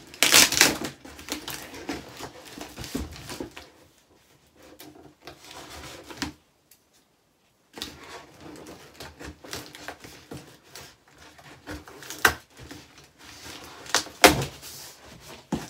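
A large cardboard box is set down with a loud scrape just after the start. Then small scissors cut into the cardboard in irregular snips and scratches, with a few sharp clicks near the end.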